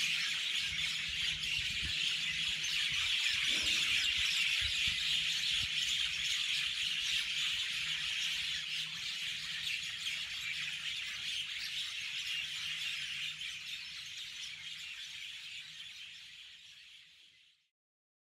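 Dense, steady high-pitched chorus of insects in trees at dusk, fading out near the end.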